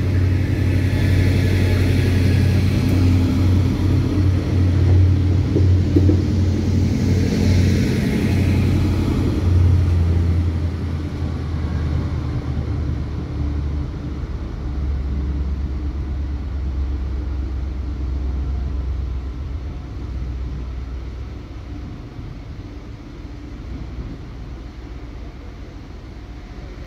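Trenitalia regional diesel multiple unit (MD 007) pulling out of the station, its engine running loud and low close by. About halfway through it fades steadily as the train draws away.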